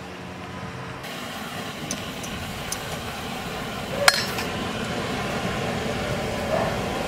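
A sharp metallic clink of cookware about four seconds in, over a steady rushing background with a few faint ticks.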